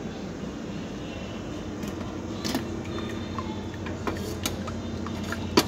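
Steady hum of a buffet dining room with scattered sharp clinks of metal and crockery. The clinks in the second half, the loudest near the end, come from a metal ladle knocking against a stainless-steel soup warmer as the soup is stirred.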